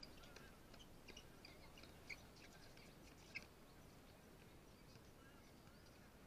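Near silence: faint outdoor ambience with scattered short, faint high chirps, mostly in the first half.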